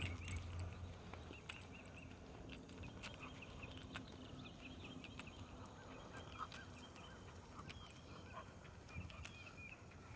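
Faint outdoor walking sounds: scattered light footsteps on asphalt, with small high chirps of birdsong in the background. A low hum fades out in the first second.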